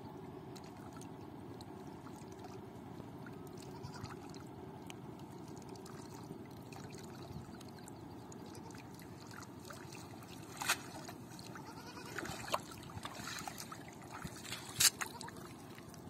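Water splashing and dripping as a cast net is rinsed and lifted in shallow river water, over a steady low background rumble. In the second half come a few sharp splashes and sloshes of wading steps and water running off the net.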